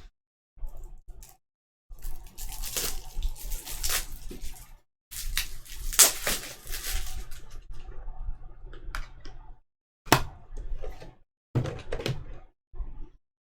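Trading-card packs and cards being handled: irregular bursts of plastic crinkling and rustling, with a sharp crackle about six seconds in and shorter rustles near the end.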